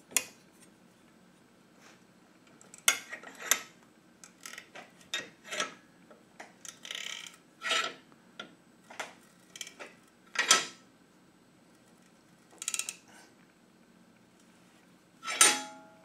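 Thin sheet-metal winch plate being handled and fitted into a bench vise's jaws: irregular light clicks, taps and scrapes of metal on metal. A louder metallic clank rings on briefly near the end.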